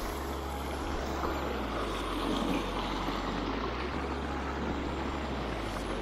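Small forest stream running over stones, a steady rushing, with a low rumble underneath.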